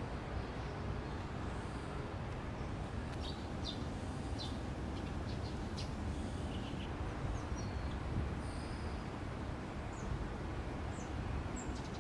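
Steady outdoor background noise with a low rumble, and scattered short high chirps and clicks: a few between about three and five seconds in, and fainter, higher ones later on.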